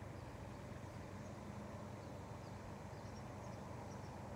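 Open-air field ambience: a steady low hum with faint, scattered bird chirps.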